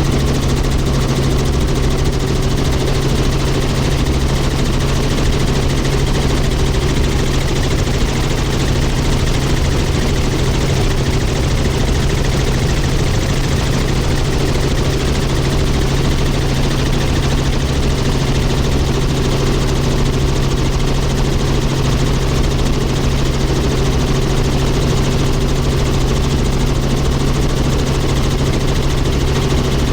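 Tour helicopter's engine and rotor running steadily: a loud, even drone with a strong low hum.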